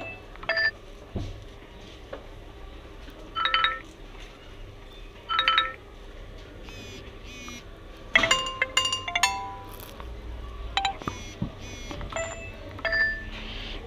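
Nokia 1 smartphone's newly replaced loudspeaker (ringer) playing short chime-like tones in several separate bursts a few seconds apart, with a quicker run of notes about eight seconds in: a sound test showing that the new speaker works.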